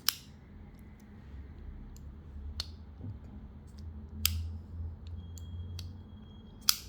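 A bearing-pivot flipper folding knife being flipped open and closed, its blade clicking sharply at each lockup and close, about five separate clicks spread a second or two apart. The loudest clicks come right at the start and near the end.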